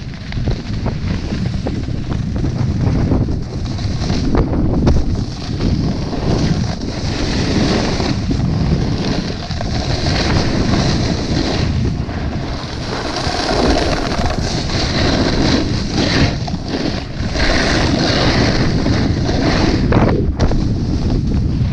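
Wind buffeting an action camera's microphone as a snowboard runs down a groomed piste, with the board's edge scraping and hissing over the tracked snow in repeated surges.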